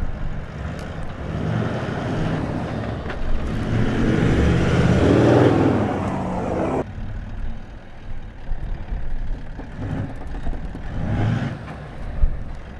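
Four-wheel-drive engines working through soft sand on a steep track. The engine and tyre noise builds to a peak about five seconds in and cuts off sharply just before seven seconds. A quieter engine follows as the next vehicle comes down the slope.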